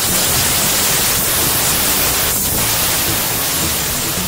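Loud, steady hiss of a pressurised jet forced through a Yamaha Mio Soul i 125 fuel injector to clean it. It starts abruptly and falters briefly twice.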